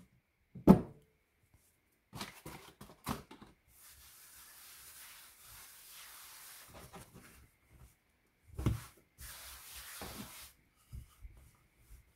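Hands pressing, patting and spreading a slab of soft chapati dough on a floured worktop: a few dull thumps, with soft rubbing in between as the palm smooths the floured dough.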